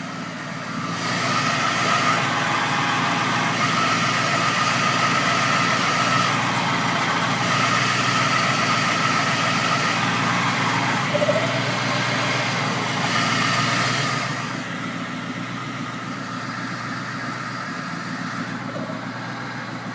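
Ford Mustang idling with its manual transmission and clutch making an odd noise when warm: from about a second in a louder, steady high whine over a rattly noise, which drops away to a quieter idle about fourteen seconds in. The owner suspects the throw-out bearing, pilot bearing or a synchro.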